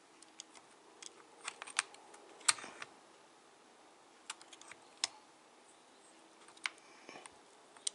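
Irregular light clicks and taps of metal on metal, the sharpest about two and a half and five seconds in, as an OS Max 21 model engine is shifted and set against its mount on a buggy chassis.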